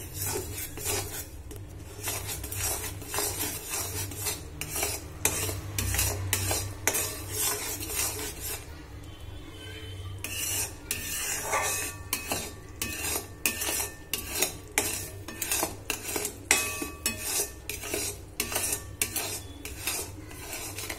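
Metal spatula stirring and scraping bubbling jaggery syrup around a metal kadai, with quick repeated scrapes and clinks against the pan and a short pause about nine seconds in. The steady stirring keeps the melting jaggery from sticking to the bottom as it cooks down to a thick syrup.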